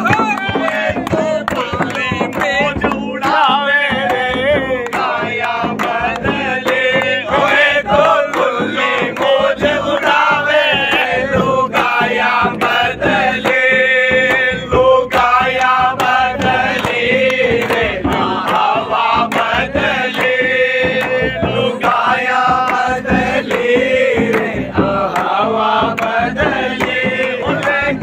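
Men singing a Holi dhamal folk song together in a loud chant-like chorus, over a steady hand-struck percussion beat.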